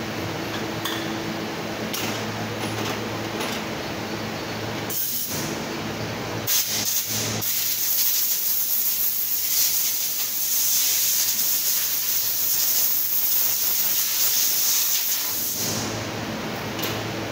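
Compressed-air blow gun hissing: a couple of short blasts about five seconds in, then one long blast of about eight seconds, over a steady low shop hum.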